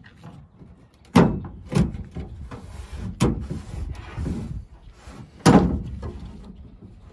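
Toyota Tundra tailgate trim panel being pried off with a trim removal tool: its retaining clips pop loose with a series of sharp knocks and snaps, four loud ones, the loudest about five and a half seconds in, with scraping in between.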